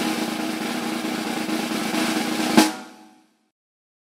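Snare drum roll over a few held tones, ending in one loud hit a little past halfway through that rings out and fades away.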